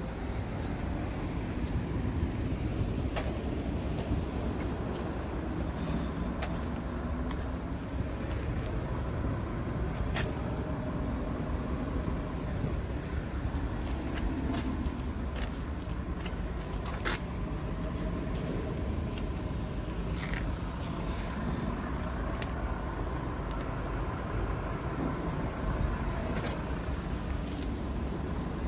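Scania truck's engine idling steadily, with scattered light clicks.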